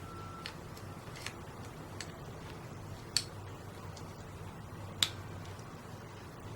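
Light plastic clicks and taps from handling and fitting the parts of an S.H.Figuarts Omegamon action figure: about five separate clicks, the two loudest about three and five seconds in.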